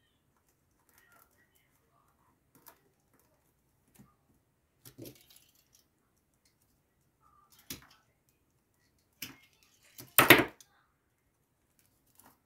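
Short clicks and rustles of rolled newspaper tubes being handled and pushed into a woven basket, then one louder clatter about ten seconds in as metal pruning shears are put down on the table.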